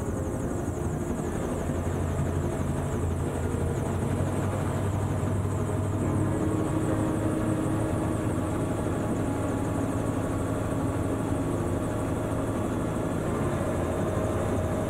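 AutoGyro Calidus gyroplane's engine and pusher propeller running steadily, heard from inside the enclosed cockpit during a vertical descent.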